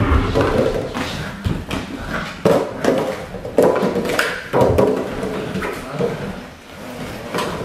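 A litter of eight-week-old Belgian Malinois puppies mobbing and tugging at an insulated freezer bag: fabric rustling, repeated thumps and scuffles of paws on a wooden floor, and short puppy growls.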